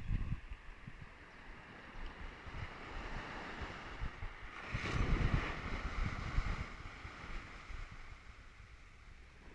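Sea surf washing in, one wave swelling louder about five seconds in, with wind gusting on the microphone.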